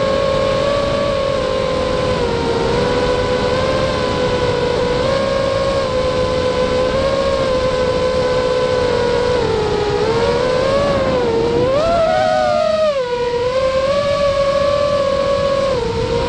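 FPV quadcopter's electric motors and propellers whining, heard through its onboard camera, the pitch shifting up and down with throttle. About three-quarters of the way through the whine climbs, drops away for a moment as the throttle is cut, then comes back up.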